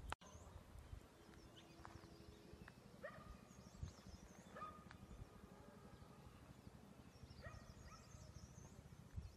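Near silence: quiet outdoor ambience with faint, scattered high chirps of distant birds.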